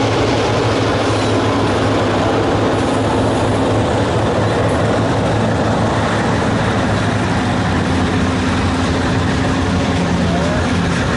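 Freight cars (covered hoppers and boxcars) rolling past close by: steel wheels running on the rails, steady and loud.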